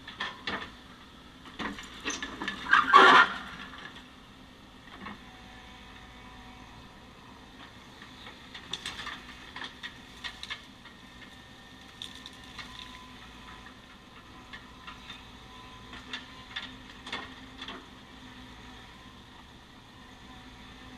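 Excavator loading the truck: irregular knocks and clatter as material drops into the dump body, with the loudest crash about three seconds in, over the steady hum of an engine running.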